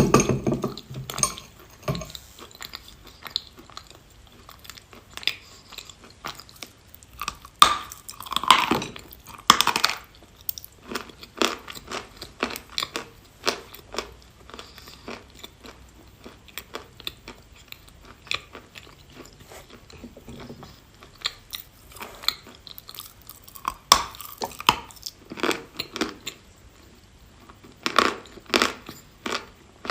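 Mouth sounds of a person biting and chewing bars of chalk: a string of crisp crunches and chewing crackles, louder about eight seconds in and again near the end.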